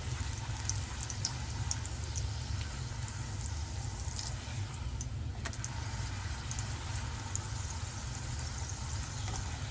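Corn tortilla frying in shallow oil in a skillet: a steady sizzle with scattered small pops and crackles, over a constant low hum.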